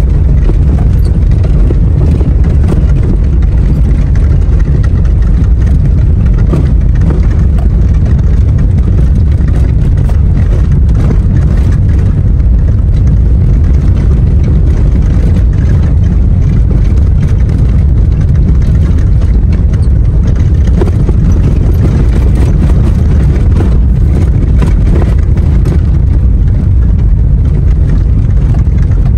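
Vehicle driving along an unpaved dirt track, heard from inside the cab: a loud, steady low rumble of engine and tyres on the rough surface.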